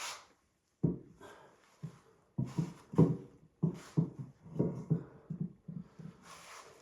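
Irregular series of clunks and knocks from engine parts and tools being handled during an engine teardown, followed by a brief hiss near the end.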